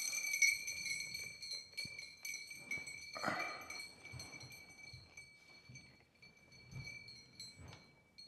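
Glass crystal prisms of a round chandelier clinking and its metal chain rattling as the fixture is lifted by the chain and hooked to the ceiling, with a short rustle about three seconds in. A steady high-pitched tone rings faintly underneath and slowly fades.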